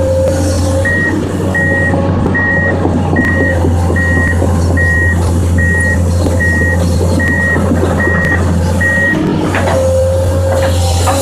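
Komatsu PC200 excavator's diesel engine running steadily while its warning alarm beeps a little more than once a second, about eleven times, the beeping stopping near the end; a few metal knocks are heard as well.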